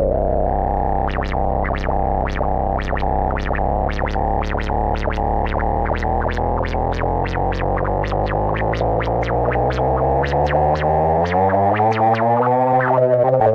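Synthesized experimental electronic effect: a steady, buzzing, distorted drone under a rapid train of sharp blips, about three a second. Near the end the drone's pitch wobbles and rises.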